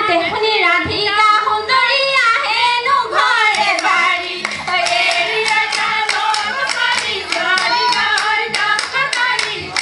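A group of women singing a Bihu song together, with hand claps keeping a steady beat of about three a second from about halfway on.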